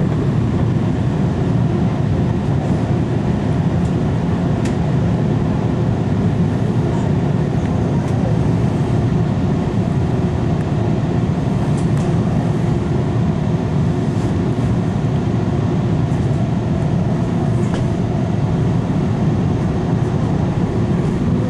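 Toronto subway train running at speed, a steady loud rumble of wheels and motors heard from inside the car.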